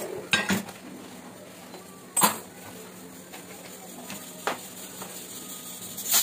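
Metal kitchen tongs and a metal tawa clinking and clanking on a gas stove's burner as rotis are cooked, in four sharp knocks a second or two apart over a faint steady hum.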